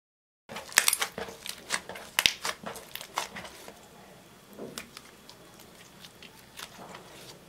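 Glittery slime being squeezed and kneaded by hand: sticky clicks, pops and squelches, dense for the first few seconds after a brief silent gap, then thinning to quieter scattered crackles as the slime is stretched out.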